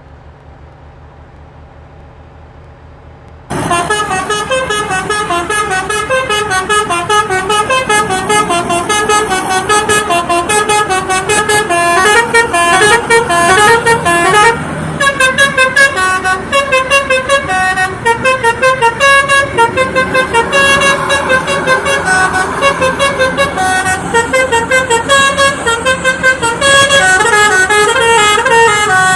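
Basuri telolet multi-tone bus horn playing a rapid tune of quickly stepping notes without a break. It cuts in suddenly about three and a half seconds in, over a low steady vehicle rumble.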